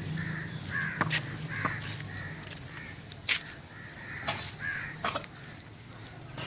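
Crows cawing several times, short hoarse calls, with a few sharp knocks in between.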